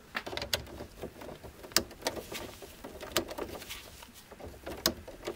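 Torque screwdriver tightening a breaker's terminal screw: faint scraping and rustling of the gloved hand on the tool, with several sharp clicks at irregular intervals, about one to one and a half seconds apart.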